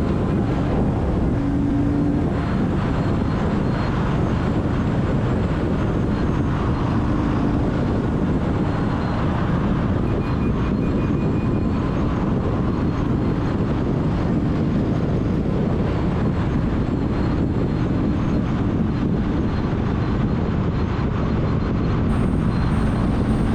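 Motorcycle under way on the road: steady engine and wind noise with no changes or breaks.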